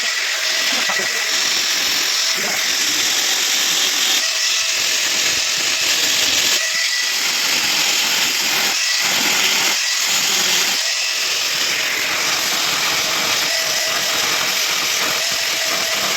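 A handheld power tool running steadily under load, a continuous harsh grinding noise with a faint motor whine.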